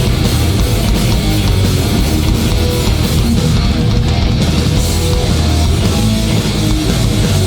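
Hardcore punk band playing live: loud distorted electric guitars, bass and drums in an instrumental passage with no vocals.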